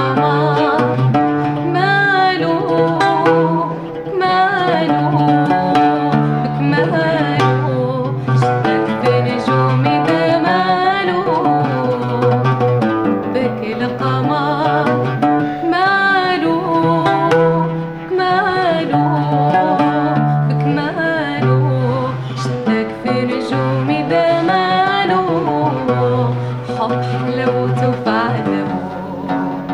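A woman singing an ornamented melody with wavering runs, accompanied by an oud whose plucked notes run steadily beneath the voice.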